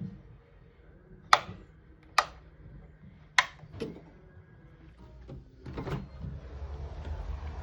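A Quinetic wireless kinetic light switch being pressed: three sharp clicks about a second apart, then fainter clicks, with a low rumble rising near the end.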